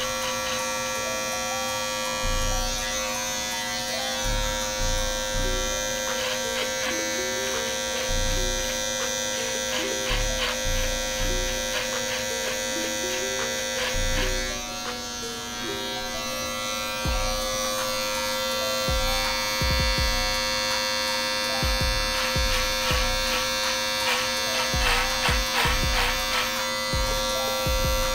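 Andis Master electric hair clippers buzzing steadily as they cut hair at the back and side of the head, with background music with a beat playing underneath.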